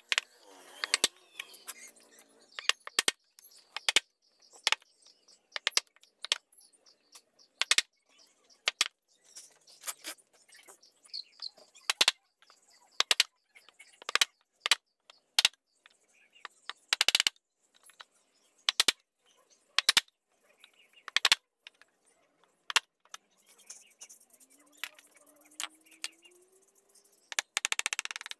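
Steel wood chisel cutting into a carved wooden flower: a run of sharp, irregular taps and cracks, often one or two a second, as the blade bites and chips break away.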